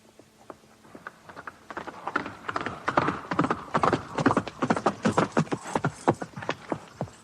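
Horses' hooves clattering in a fast, dense run of strikes, fading in and growing louder as they approach, loudest in the middle.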